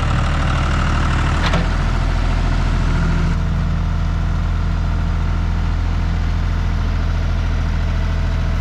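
John Deere compact tractor's engine idling steadily, with one brief knock about a second and a half in.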